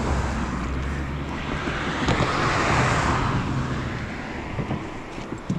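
A car passing over the bridge: a low engine hum and tyre noise that swell to a peak about halfway through, then fade.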